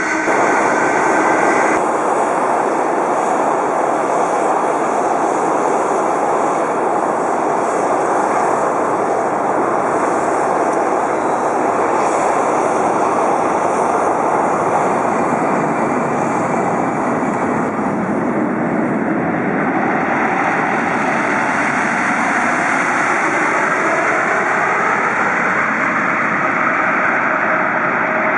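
Boeing 747-8F jet engines at takeoff power on the runway, a loud, steady rush of noise. In the second half the engine tones slide in pitch as the aircraft moves past. A few steady tones from the previous shot cut off about two seconds in.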